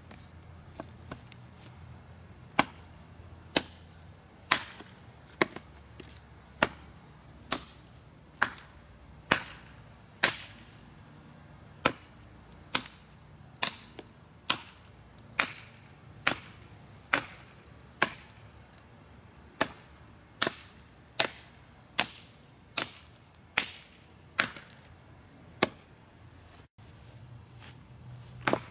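An Estwing EBM machete's drop-forged 1055 carbon steel blade chopping into a very hard, dry, weathered branch on a stump. The sharp chops come steadily, about one a second, starting a couple of seconds in. A steady high insect drone, like crickets, runs behind the chops.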